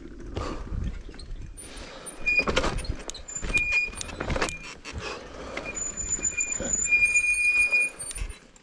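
Off-road bicycle riding over a rough, rooty trail: irregular knocks and rattles from the tyres and frame. A thin high squeal comes and goes in the second half.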